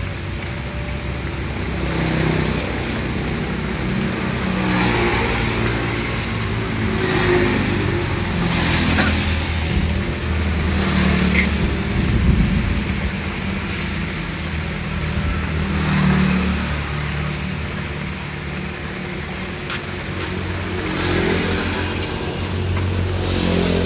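Motor traffic passing on a wet road: about eight motorcycles and other vehicles go by one after another, each a swell of tyre hiss on the wet asphalt that rises and fades over a second or two, over a low engine hum.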